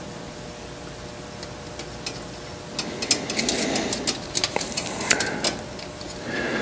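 Light metallic clicks and taps from a hand lever tube bender and copper tubing being handled, coming thick and fast from about three seconds in over a faint steady hum.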